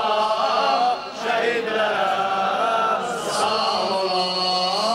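A group of men chanting together in unison, led by a singer on a microphone, in a Shia mourning chant (mersiyye). The voices hold long, sliding notes.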